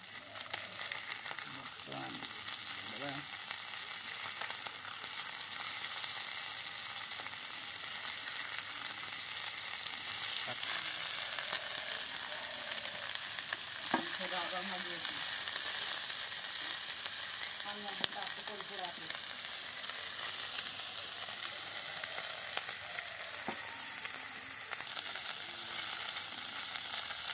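Mahurali fish pieces frying in hot oil on a tawa: a steady sizzle with occasional faint crackles, getting a little louder about ten seconds in.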